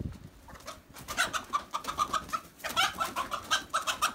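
Chickens squawking in alarm while being chased with a net: a fast, loud run of repeated squawks that starts about a second in.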